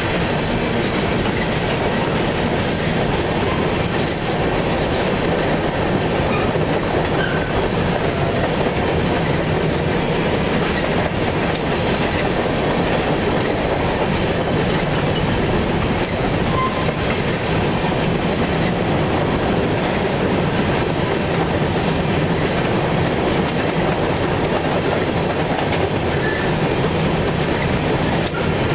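Freight train of covered hopper cars rolling past close by: steady rolling noise of steel wheels on the rails.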